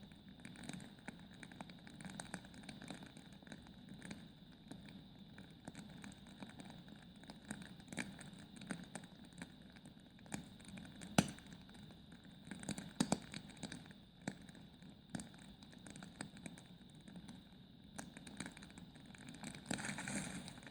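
Logs burning in a fireplace, crackling with irregular small snaps and pops over a low rumble of the fire. A sharper pop comes about eleven seconds in and a quick cluster of pops around thirteen seconds.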